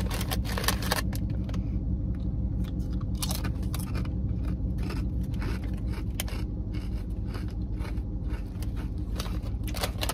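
Potato chips crunching as they are chewed, with the bag crinkling in between, over the steady low hum of an idling car.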